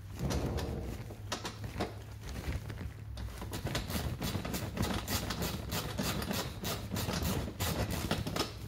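Rapid, irregular clicking and rattling from hand work on the scooter's plastic body panels. The clicking grows denser and quicker after about three seconds.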